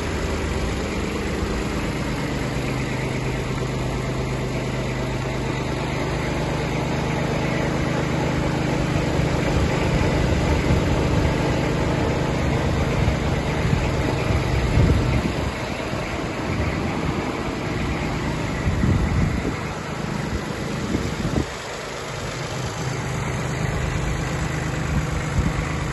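Kubota GB16 mini tractor's three-cylinder water-cooled diesel engine idling steadily, a low even running note that grows louder and rougher through the middle stretch.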